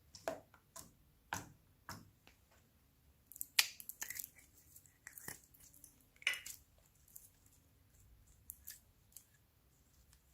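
Slime being squished and stretched by hand, giving off irregular sticky clicks and small pops, a few louder ones about the middle.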